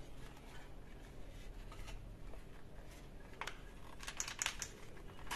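Faint handling of a plastic toy gun: quiet rustling with a light click a little past halfway and a few small clicks near the end.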